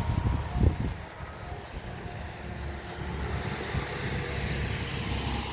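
A Graupner F1 radio-controlled model racing boat runs far out on the pond, its motor faint under wind rumbling on the microphone. There are a couple of thumps in the first second.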